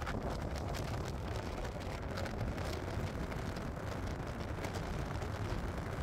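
Thunderstorm at night: a steady low rumble with many faint short ticks scattered through it.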